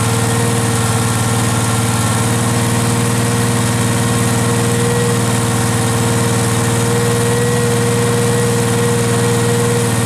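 Case 446 garden tractor's engine running steadily with an even, constant hum, newly restored and running again.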